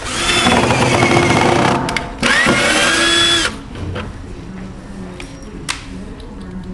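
Electric drill-driver driving screws in two runs, about two seconds and then a second and a half, its motor whine falling in pitch in the first run and rising in the second.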